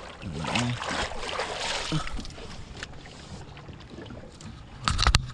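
Wind on the microphone and water noise around a small open boat, with a low steady hum underneath; a short loud knock about five seconds in.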